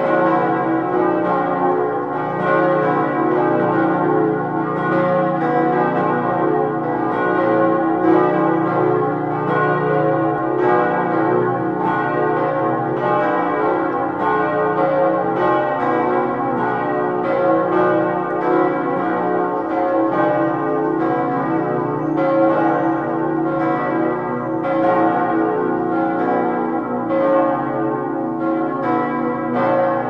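Full peal of the Marienkirche's swinging bronze church bells, tuned B, C♯, D♯ and F♯ with a small high F bell. Their strokes overlap into a continuous, irregular mesh of ringing tones.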